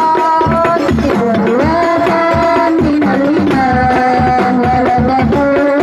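Sholawat devotional singing into microphones, with held, gliding sung notes, accompanied by a group of rebana frame drums with small jingles beating a fast, steady rhythm.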